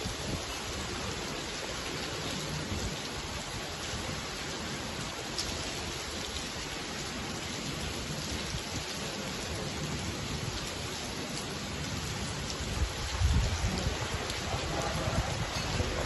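Heavy rain pouring steadily on the paving and garden. About three-quarters of the way through, gusts of strong wind begin buffeting the microphone with a low rumble and the sound grows louder.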